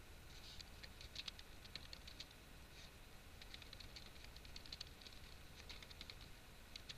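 Faint typing on a computer keyboard: quick, irregular key clicks in short runs with brief pauses between them.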